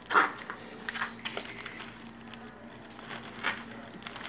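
Plastic carrier bag rustling in a few short crinkles, the loudest just at the start, over a faint steady buzz.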